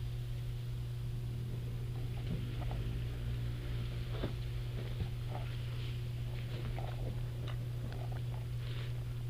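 Dry reeds and tall grass rustling and crackling in short irregular bits as they are brushed against, over a steady low hum.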